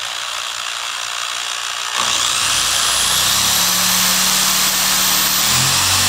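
Whirring of a small DC motor driven up to high speed as a generator. About two seconds in it grows louder, and a high whine rises in pitch, then holds steady over a low hum.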